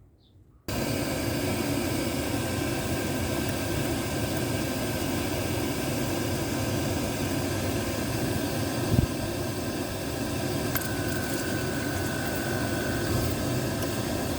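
Oil boiler burner starting up abruptly just under a second in, its fan and fuel-pump motor then running with a steady, loud rushing hum as it tries to fire after the fuel line has been bled from running dry. A single short thump about nine seconds in.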